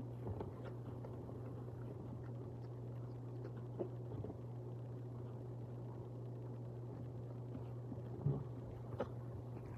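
A few soft clicks and scrapes of a metal fork against a plate of food, the sharpest near the end, over a steady low hum.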